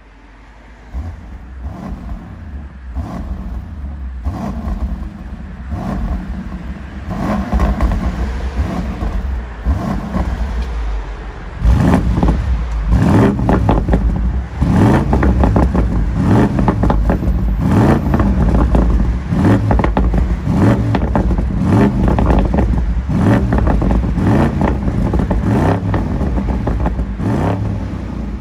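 BMW X5 M50i's twin-turbo V8 revved in repeated throttle blips at a standstill through a dÄHLer four-pipe stainless-steel exhaust. It is fairly subdued with the exhaust flap closed. Partway through the flap opens, and the sound becomes much louder and sharper.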